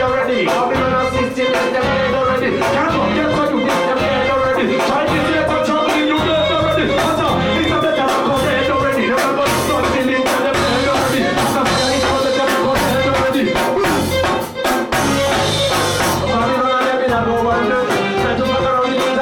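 Live reggae band playing, drum kit hits steady on the beat, with a vocalist chanting and singing over it through the PA.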